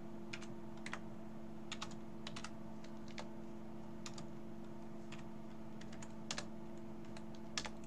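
Computer keyboard typing: scattered keystrokes in short irregular runs, over a steady low electrical hum.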